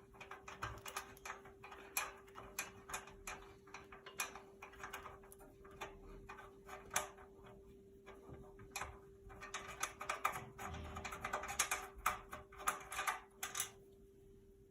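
Metal hand tool clicking and rattling as the bolts holding a display header are undone, in rapid, irregular clicks that stop near the end, over a faint steady hum.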